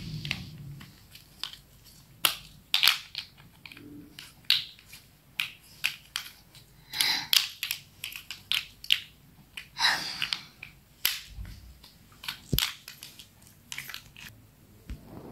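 Small plastic interlocking building blocks clicking and clacking as they are handled, snapped together and pulled apart, in an uneven run of sharp clicks.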